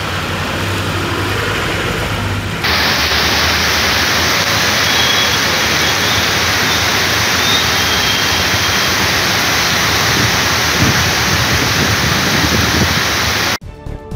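Heavy rain pouring on a waterlogged road, a dense steady hiss with traffic under it, getting louder about three seconds in. It cuts off suddenly near the end.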